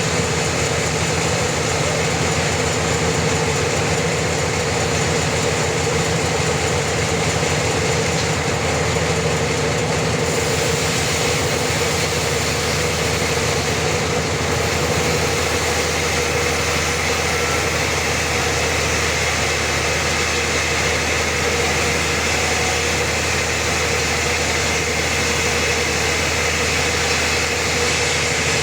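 Sawmill machinery running steadily: an engine-driven wood saw with a constant, even hum and no separate cutting strikes.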